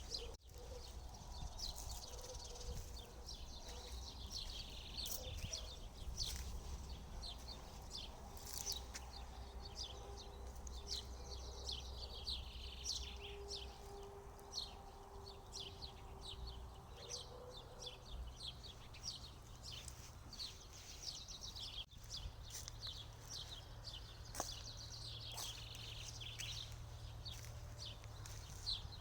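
Small birds chirping and singing throughout, a steady stream of short, quick, falling notes, over a faint low rumble.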